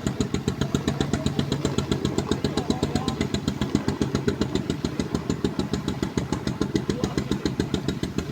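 Kubota tractor diesel engine running steadily at idle, with an even beat of about five pulses a second.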